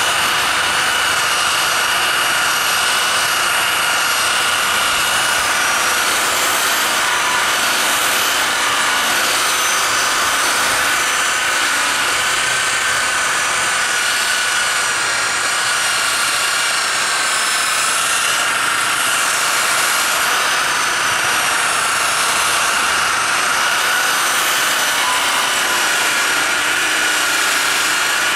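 Electric buffer running steadily at speed with a high whine, its pad polishing a truck grill shell that has been stripped of its anodizing; the pitch wavers slightly.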